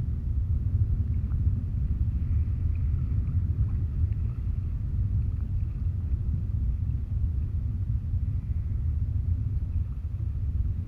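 Steady low rumble of wind and sea on an action camera's microphone, fluctuating without a break.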